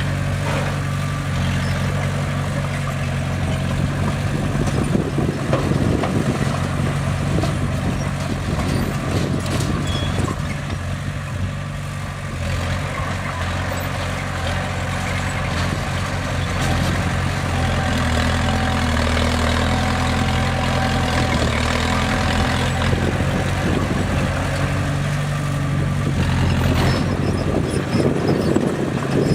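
Bulldozer's diesel engine running steadily, with some metallic clatter now and then, heaviest near the end.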